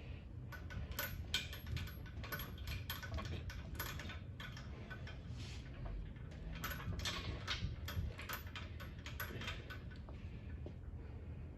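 Irregular light metallic clinks and rattles, a quick run of small taps through most of the stretch, as metal parts shift against each other.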